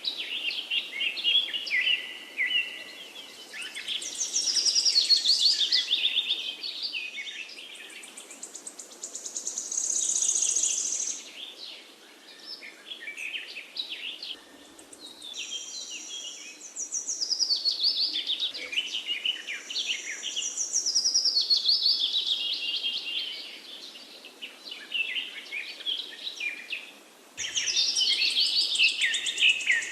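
Several songbirds singing with their songs overlapping: quick high chirps and fast trills that come and go in bouts of a few seconds. A faint steady hiss runs underneath.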